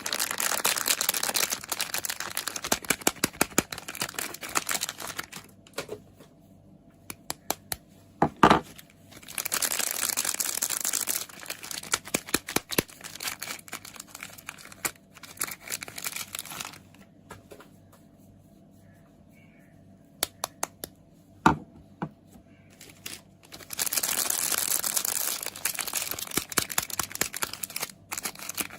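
Soap packaging being crinkled and torn open by hand in close-up, in several dense stretches of crackling. Between them come scattered light taps and ticks, and two sharper knocks, about a third and three quarters of the way through, are the loudest sounds.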